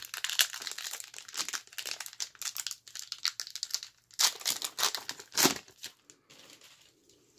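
Plastic wrapper of a 1990–91 Skybox basketball card pack crinkling as gloved hands tear it open: about four seconds of continuous crackling, then two shorter crinkles, then it goes quiet near the end.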